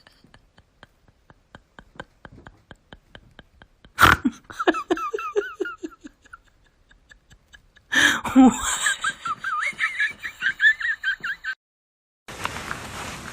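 Rapid, even clicking for about four seconds, then a sudden knock followed by bursts of laughter. The laughter cuts off shortly before the end, and a steady hiss follows.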